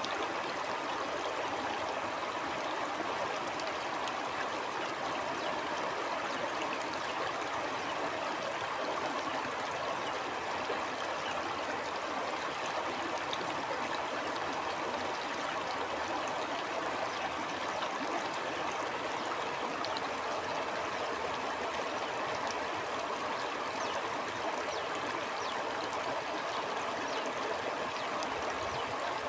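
A stream of water flowing steadily over rocks, an even, unbroken rush with no change in level.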